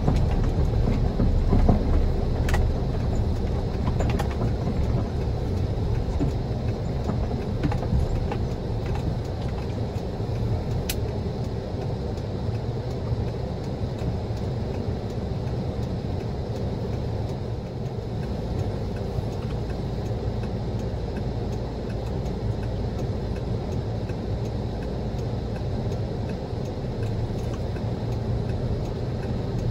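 Car driving over snow-covered, badly rutted streets, heard from inside the car as a steady low road rumble, with a few short sharp knocks in the first dozen seconds.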